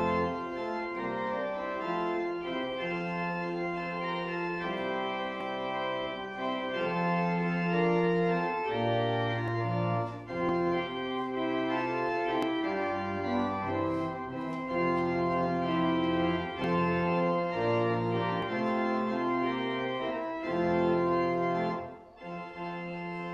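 Organ playing slow, sustained chords over a moving bass line, with a brief break between phrases near the end.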